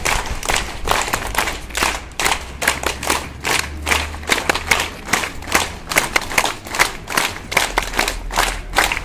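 A group of people clapping together in a steady rhythm, about three claps a second.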